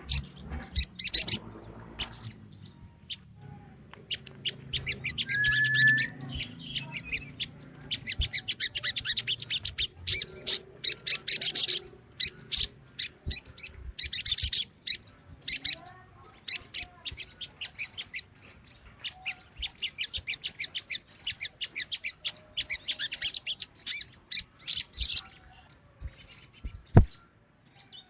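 A flock of sogon birds calling together in dense runs of rapid, high-pitched chattering chirps and trills.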